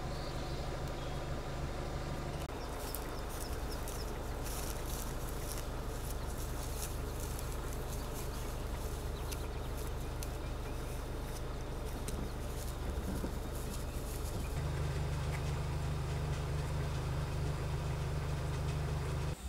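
Vehicle engine and road noise while driving, a steady low hum. The engine note changes a few seconds in and grows louder about three-quarters of the way through.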